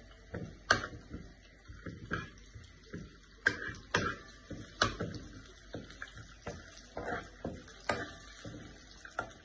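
A metal spoon stirring curry leaves and cumin seeds frying in ghee in a nonstick pan, for a tadka: irregular light clicks and scrapes of the spoon against the pan, about one or two a second.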